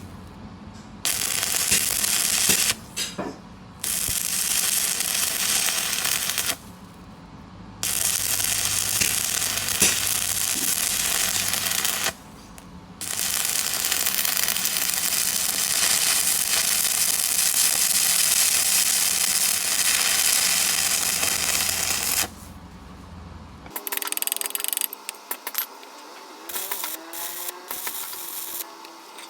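Stick (arc) welding: the arc crackles and hisses steadily in four runs of a few seconds to nine seconds each, broken by short pauses, with a low electrical hum under it. Near the end come lighter, irregular metallic clicks.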